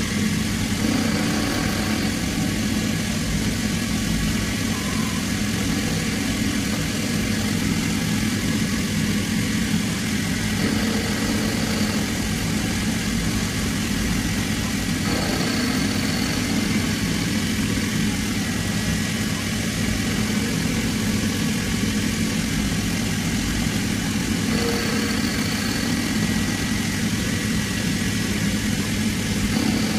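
Small CNC mill's spindle running steadily as an end mill cuts flats into a threaded brass fitting held in a four-jaw chuck. A short high tone comes in about halfway through and again near the end.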